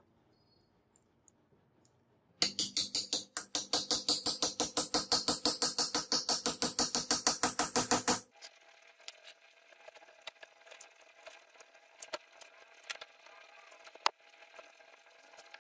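A rapid, even run of sharp metallic taps, about six a second, starting a couple of seconds in and stopping abruptly after about six seconds, each tap ringing briefly; afterwards only faint clicks and light scraping.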